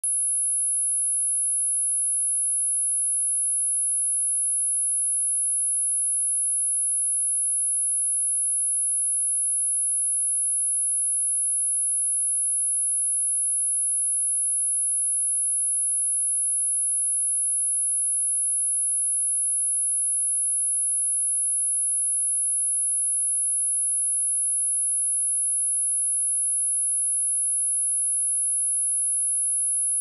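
Pure sine-wave test tone at 10,587 Hz, a single high-pitched steady whistle held at constant level, used to test a speaker and to shake water and dust out of it.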